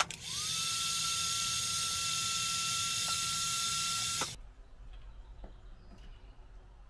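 Electric heat gun switched on, its fan motor whining up to a steady pitch within a fraction of a second and blowing steadily with a strong hiss for about four seconds, then cut off abruptly. It is shrinking the heat-shrink on a crimped wire connector.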